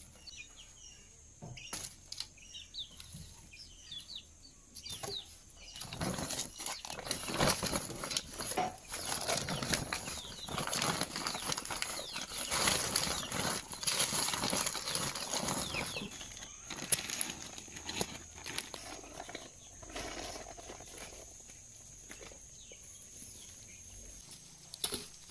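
A paper sack rustling and crumpling as it is handled and folded, in a dense run of crackles that lasts about ten seconds in the middle and is quieter at either end.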